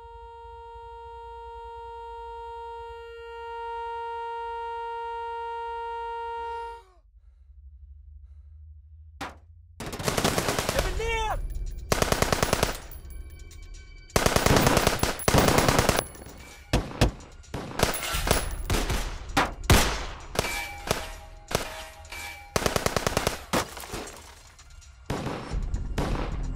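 A steady high ringing tone with overtones holds for about seven seconds and cuts off. After a single click, automatic rifle fire breaks out about ten seconds in, in rapid bursts with short gaps between them.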